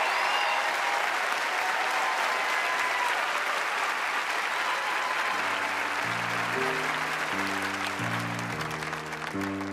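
Audience applauding, slowly dying down, with music of short stepped notes coming in about halfway through.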